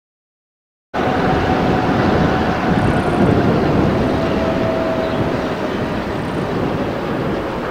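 EMD diesel locomotive of Transnet Class 35-800 (ex-Queensland 2170 class) running as it approaches slowly, hauling a coal train, with a steady engine rumble and rolling-stock noise. The sound cuts in suddenly about a second in.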